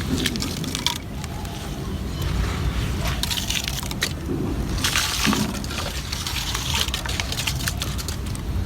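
Gritty cement crumbling and crunching, irregular crackles and sharp little snaps with denser crunchy stretches, over a steady low rumble.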